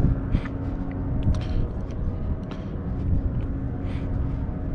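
Steady low outdoor rumble with a faint continuous hum and a few soft scattered ticks.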